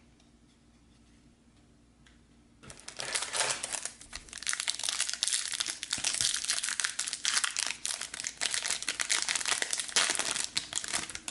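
Foil trading-card pack wrapper being torn open and crinkled by hand. It starts about three seconds in, after a quiet start, and continues as dense, crackling crinkles until just before the end.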